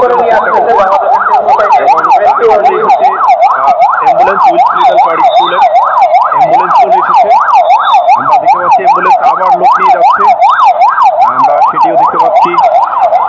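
Ambulance's electronic siren on a fast yelp, its pitch sweeping up and down about two and a half times a second.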